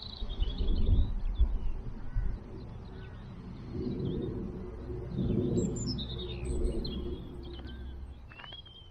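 Small songbirds chirping and singing in the hedgerows, in short calls and trills scattered throughout. A loud low rumble on the microphone covers the first couple of seconds.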